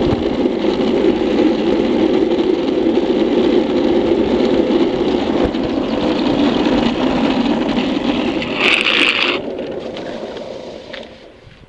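Street luge board's wheels rolling fast on asphalt, a steady roar. About eight and a half seconds in comes a short harsh scrape as the rider's shoe soles drag on the road to brake, and the roar then fades as the board slows.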